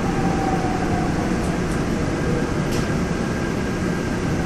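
Seoul Subway Line 5 5000-series electric train running, heard from inside the passenger car as it slows along the station platform: a steady low rumble of wheels on rail with a faint whine from the drive.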